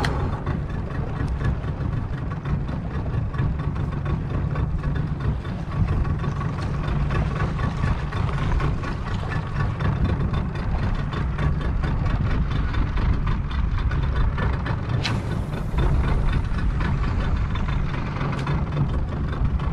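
Boat engine running steadily, a low rumble with a faint steady whine above it.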